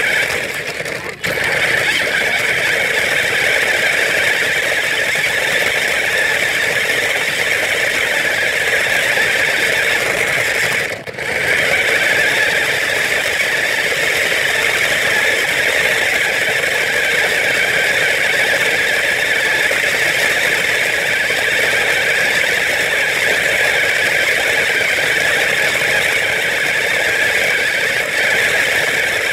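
Battery-powered remote-control toy car running, its small electric motor and gears whirring steadily with the wheels rolling over the ground, cutting out briefly about a second in and again around eleven seconds.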